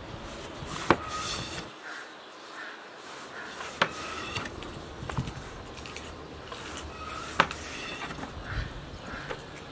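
Long wooden rolling pin working a thin dough sheet on a cloth-covered table, with four sharp wooden knocks a second or more apart as the pin strikes the table. Small birds chirp in the background.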